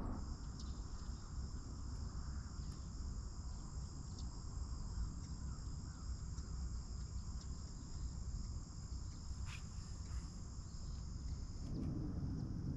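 Insects trilling in a steady, high-pitched drone that cuts off suddenly near the end, over a low rumble.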